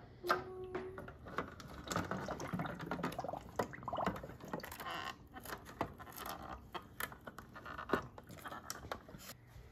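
Hands pressing a plastic volcano model down into a small water-filled plastic tank to stick it to Velcro dots on the bottom: scattered plastic taps, knocks and scraping, with a brief squeak just after the start.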